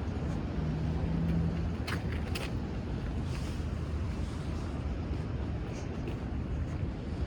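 City street traffic: a steady low rumble of passing vehicles, with two sharp clicks about two seconds in.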